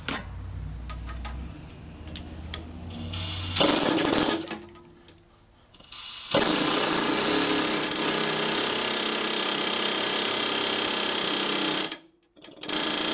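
Pneumatic air hammer driving a new intake valve guide into a Mopar 318 cast-iron cylinder head. There is a short burst of hammering about three and a half seconds in, a steady run of about six seconds, then a brief final burst near the end as the guide seats flush.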